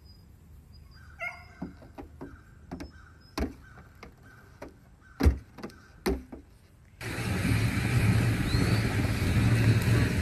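A goat's hooves knocking and tapping on a car's sheet-metal hood: about half a dozen sharp, separate knocks spread over the first seven seconds. About seven seconds in, a loud steady rushing noise takes over.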